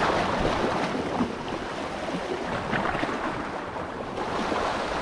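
Steady wash of sea water with wind buffeting the microphone.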